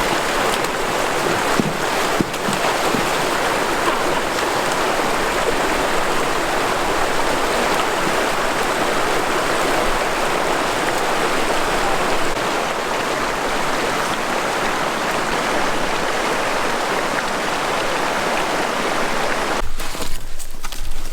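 Steady rushing water, like a stream, that fades out near the end.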